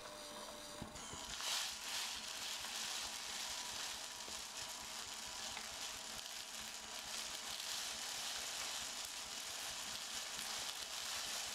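Homemade rotary polishing tumbler running: a 150 mm sewer-pipe drum turning on rollers driven by a small GA25-370 gear motor, with steel-ball media and aluminium parts rolling inside it. The sound is a steady, high-pitched rushing rattle that settles in about a second in.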